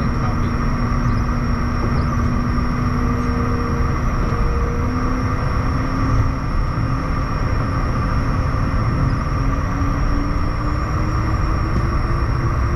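Steady rumble and whine from a Bombardier Challenger 350 business jet, with several high whines held level. A low tone rises slowly in pitch from about five seconds in.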